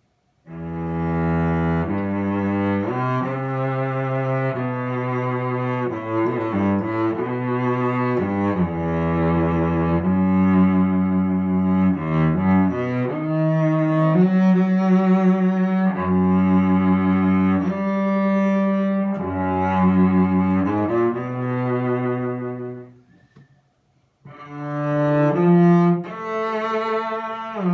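Solo cello played with the bow, a slow melody of long sustained notes. The cello is a c. 1910 Michel-Ange Garini, a French JTL-distributed instrument strung with Kaplan D'Addario strings. The playing breaks off for about a second near the end, then resumes.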